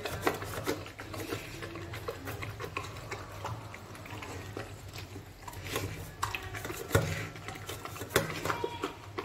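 A dog eating rice and chicken from a stainless steel bowl, its muzzle and teeth knocking the metal in a run of small clicks and clinks, with a few louder clinks about a second in and again near the end.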